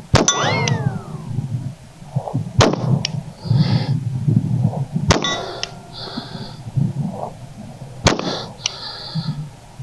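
EAA Witness .40 S&W pistol fired four times, about two and a half to three seconds apart. Each shot is followed by the ringing clang of the steel target plate being hit.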